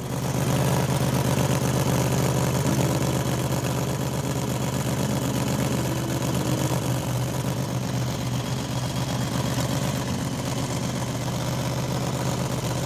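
Honda VFR800's V4 engine idling steadily, with a deep even hum, through an exhaust whose new collector-box-to-silencer section is only slid together, with no gasket, sealer or clamp yet.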